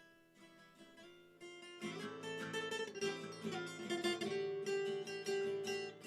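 Background music led by plucked acoustic guitar, quiet at first and growing fuller and louder about two seconds in.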